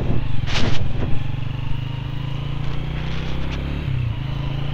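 Motorcycle engine running at riding speed on a wet road, with tyre and wind noise over it. A brief hiss comes about half a second in, and the engine note shifts shortly before the end.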